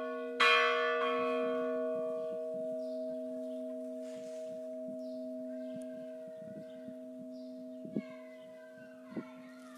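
Church bell struck once about half a second in, its hum ringing on and slowly fading away; faint chirps come over it in the second half.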